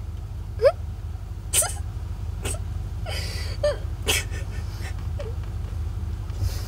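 Short wordless vocal sounds, a few brief whimper-like murmurs and breaths, over a steady low hum inside a car.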